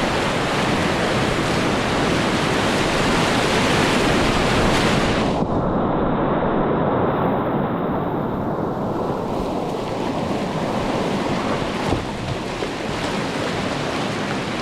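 Whitewater rapids rushing in a steady loud roar of noise. About five seconds in, the sound turns suddenly muffled, losing its hiss, and clears gradually over several seconds.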